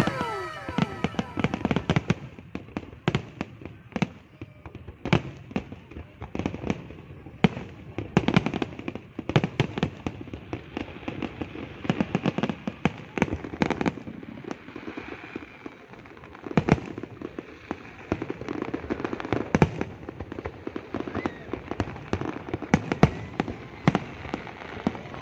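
Fireworks display: a continuous, irregular run of sharp bangs and crackling bursts, some louder than others. A falling whistle fades out right at the start.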